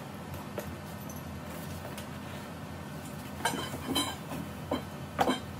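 Cardboard shipping box being lifted and shifted, with a handful of sharp knocks and scrapes in the last two seconds; before that only a low steady room hum.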